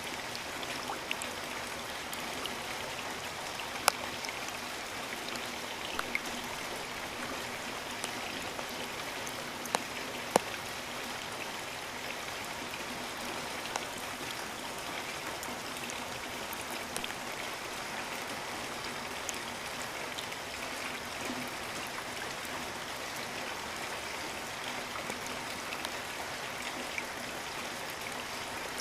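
Steady rain, an even hiss, with single louder drops striking close by now and then, the sharpest about 4 and 10 seconds in.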